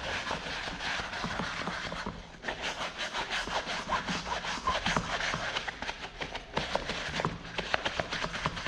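A brush scrubbing the inside of a fabric slip-on Vans shoe in quick back-and-forth strokes, with a short pause about two seconds in.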